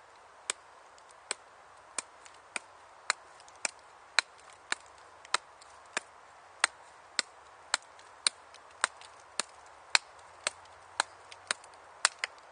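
Scandi-grind bushcraft knife chopping into a small branch held in the other hand, taking the bark off. It makes short, sharp knocks at a steady pace of about two a second.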